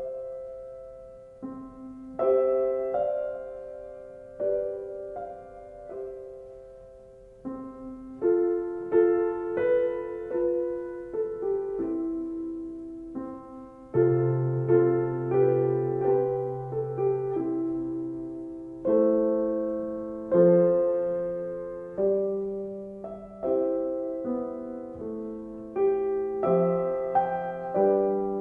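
Slow, gentle solo piano music: separate notes and chords, each struck and dying away. About halfway through, a low note is held underneath for a few seconds.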